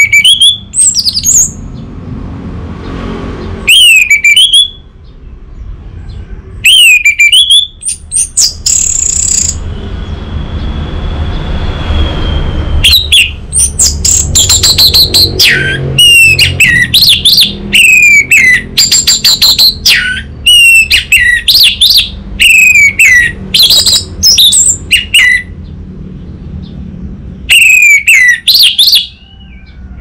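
Orange-headed thrush singing loudly in bursts: whistled notes that slide downward, mixed with rapid chattering clicks, with short pauses between phrases. A low hum runs underneath.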